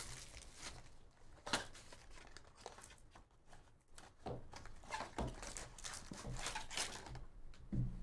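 Foil wrapper and box packaging being torn open and crinkled while opening a box of baseball card packs, in irregular rustles and short crackles with a sharper snap about one and a half seconds in.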